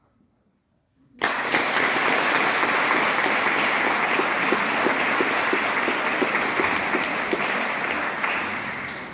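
Audience applause. It breaks out suddenly about a second in after a short silence, holds steady, and fades near the end.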